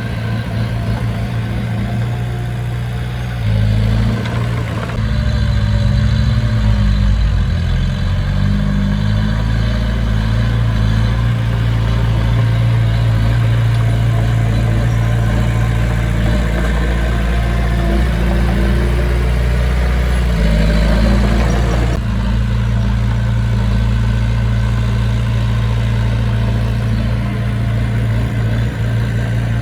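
Diesel engine of heavy construction machinery running steadily, its pitch shifting several times as the revs change.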